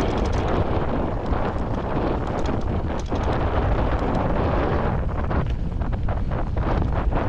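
Wind buffeting the microphone on a fast mountain-bike descent, a heavy steady rumble, with frequent short clicks and rattles from the bike over rough ground, busiest near the end.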